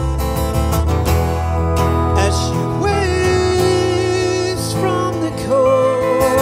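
Live country band music: strummed acoustic guitar, pedal steel guitar and double bass playing together, with long held notes that slide into pitch over a steady bass.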